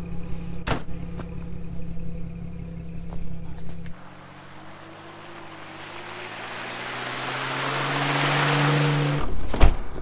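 A vehicle engine running steadily with a click about a second in. Then a Jeep approaches on a wet, slushy road, its engine and the hiss of its tyres growing steadily louder over about five seconds, and a thump comes near the end.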